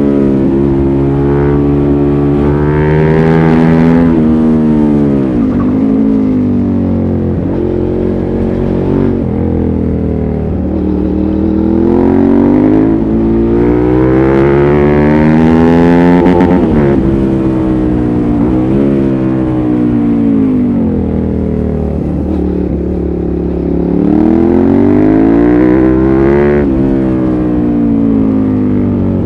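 Suzuki SV650S's 645 cc V-twin engine through a LeoVince exhaust with its dB-killer fitted, pulling through the gears. The engine note climbs several times and drops back sharply after each climb, with one long climb in the middle.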